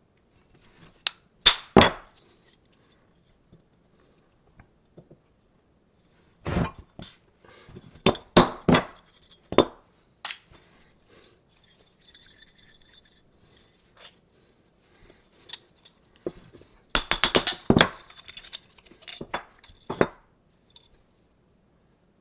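Metal parts and hand tools clinking and knocking against each other and a hard surface: a couple of sharp knocks near the start, a run of them in the middle, and a quick rattling cluster near the end.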